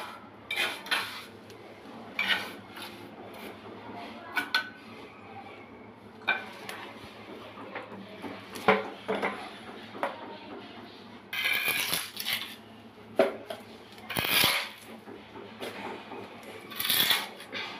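Trowel and metal bucket clinking, knocking and scraping while mortar is worked around the base of a toilet bowl; the bucket is moved and set down on the floor. Scattered sharp knocks, with several longer scrapes in the second half.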